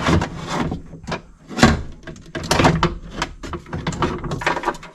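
A power window regulator clunking and scraping against the inside of a 2011 Ford Expedition's driver door as it is worked into place: a run of knocks and rubbing, with the sharpest knock about a second and a half in.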